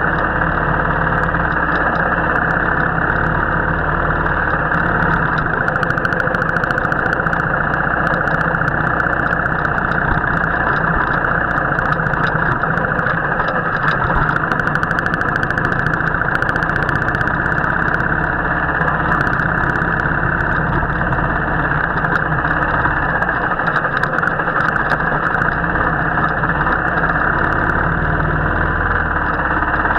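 Royal Enfield motorcycle engine running steadily while riding, with a dense rushing noise under it.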